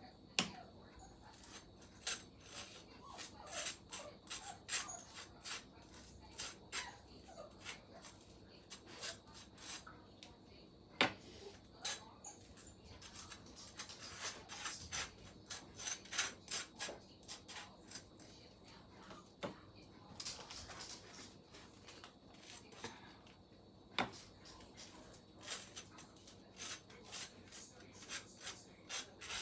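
Butter being spread on toast with a knife: faint, repeated short scraping strokes, with a few sharper clicks of the knife in between.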